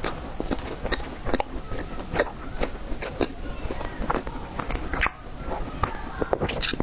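Close-miked eating of a tiger skin roll cake: biting and chewing, heard as many short, irregular mouth clicks and smacks, a few a second.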